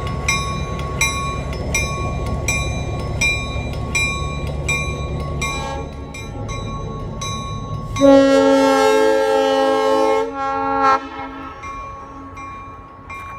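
Diesel locomotive rumbling past with its bell ringing steadily, about two strokes a second. About eight seconds in, a loud multi-tone locomotive air horn blows for about three seconds, ending with a short extra blast.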